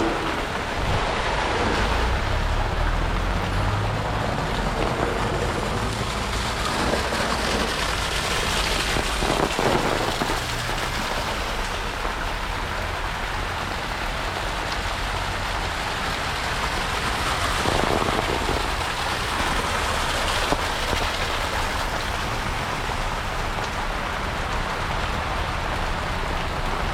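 Heavy rain falling steadily, with a low rumble underneath. The rain swells louder twice, about ten and about eighteen seconds in.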